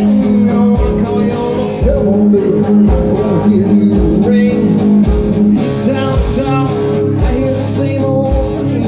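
Amplified live rock band playing: guitars over drums, with a steady beat.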